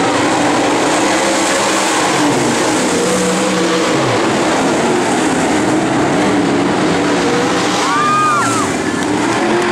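A pack of dirt-track Modified race cars running at speed around an oval, their engines a loud, continuous drone whose pitch shifts up and down as they lap.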